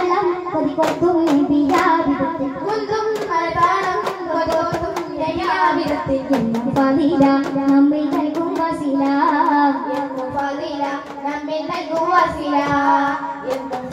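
Group of boys singing in chorus, with sharp strikes of hand-held frame drums (daf) and hand claps keeping time, as in a Kerala daff muttu performance.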